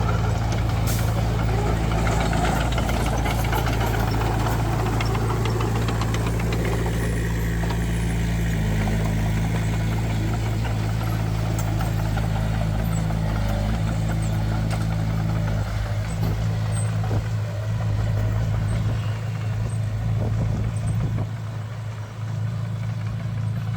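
Heavy diesel engine of a construction machine running at a steady speed, a low, even drone that dips briefly near the end.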